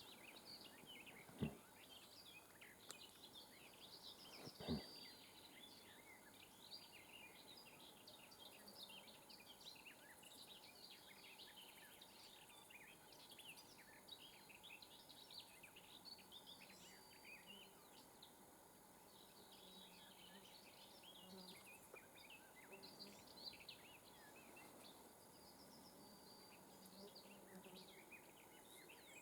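Faint open-country ambience with many small birds chirping and singing throughout, and two sharp clicks, one about a second and a half in and one near five seconds in.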